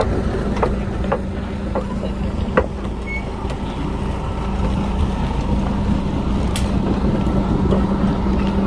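A steady low motor hum over a low rumble, with a few faint knocks in the first few seconds.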